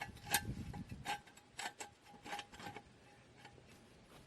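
Steel jack stand's ratchet column clicking as it is pulled up and set under the truck's frame: a string of irregular sharp metal clicks that thin out and fade after about three seconds.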